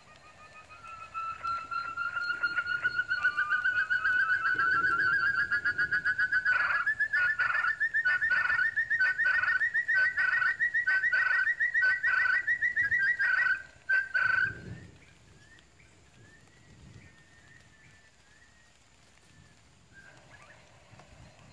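Quail call: a long, fast trill that slowly rises in pitch for about twelve seconds. Partway through, a run of sharper notes about two a second joins it, and then the call stops abruptly.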